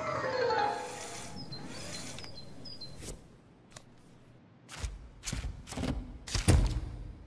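A tune fades out over the first few seconds, then small plastic model pieces are handled and pressed together in the hands, giving about half a dozen sharp clicks and snaps, the loudest about six and a half seconds in.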